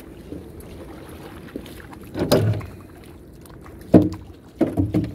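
Short splashes in shallow river water and knocks against a small boat's hull as people step out and wade beside it, three separate bursts, the loudest with a sharp knock about four seconds in.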